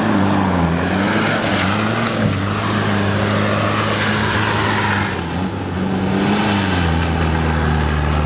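Off-road 4x4's engine working through the course, revving up and down several times, then holding a steady note near the end.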